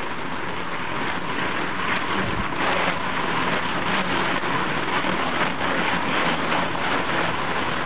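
Steady rushing noise of a bunch of road-racing cyclists speeding past close by: tyres on the road and the rush of air.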